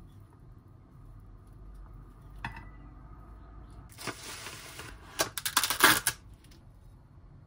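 Plastic cling film pulled off its roll with about a second of hiss, then torn across the box's cutter edge and crinkled in a quick run of sharp crackles, the loudest sound.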